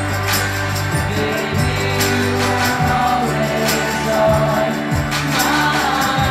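Live indie rock band playing with a group of voices singing together over a steady beat of percussion hits.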